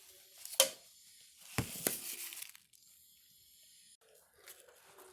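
Close-miked eating sounds: a sharp bite a little over half a second in, then food tearing for under a second. Smaller clicks follow near the end.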